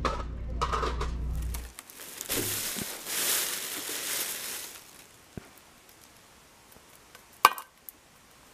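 A thin plastic grocery bag rustling and crinkling for a few seconds as soup cans are handled in it, after a short stretch of steady low store hum. Near the end comes a single sharp knock, the loudest sound, with a brief ring.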